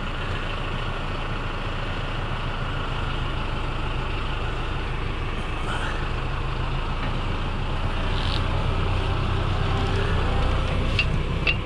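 Tractor engine running steadily, a low drone that grows somewhat louder in the last few seconds.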